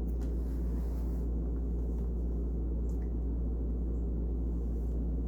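Steady low hum with faint background noise and no speech, with a faint tick or two about three seconds in.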